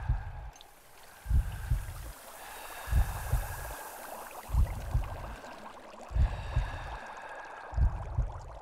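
Soundtrack of bubbling, gurgling water with a deep double thump repeating about every second and a half, like a slow heartbeat.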